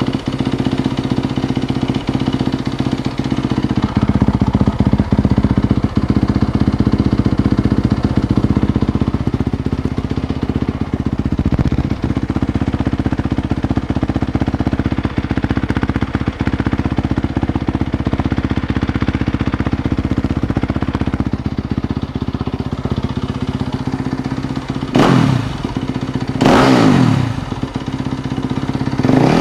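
Yamaha YZ250FX's 250 cc single-cylinder four-stroke engine idling steadily through its original factory exhaust, with two quick throttle blips near the end.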